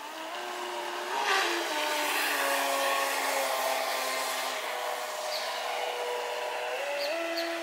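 Radio-controlled model boat motors running at speed, a high whine whose pitch steps up and down as the throttle changes, over a rushing hiss that grows louder about a second in.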